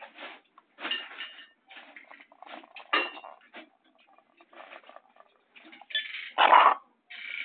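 Chicken snoring in its sleep: a run of short, irregular raspy breaths, the loudest about three seconds in and again near the end.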